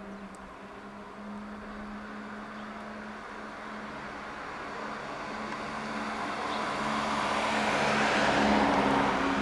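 A car passing close by on the street, its tyre and engine noise growing louder to a peak near the end, then beginning to fade, over a steady low hum.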